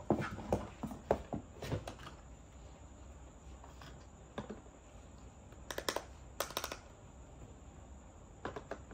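Small plastic toy kitchen pieces clicking and tapping as they are handled and set down on a plastic toy kitchen cart. There is a flurry of light clicks in the first two seconds, a few more around four and six seconds in, and a few near the end.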